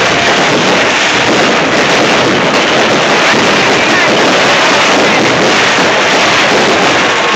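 Fireworks display in full barrage: a loud, unbroken roar of bursts and crackle with no single bang standing out.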